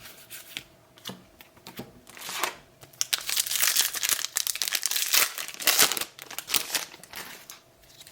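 Trading card booster pack wrapper being torn open and crinkled, with a few light handling clicks first; the crinkling is loudest from about three to seven seconds in.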